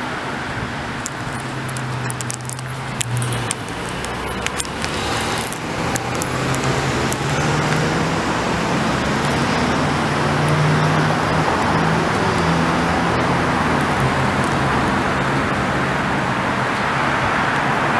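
Street traffic: cars running along the road beside the curb, with a low engine hum that builds over the first several seconds and then stays steady. A few light clicks come near the start.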